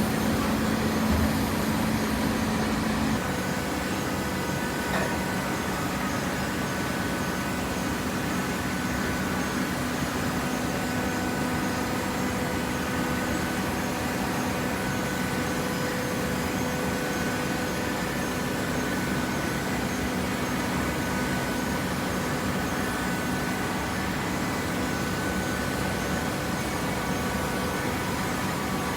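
Automatic horizontal cardboard baler running, a steady hydraulic machine hum; its low drone drops slightly in pitch about three seconds in.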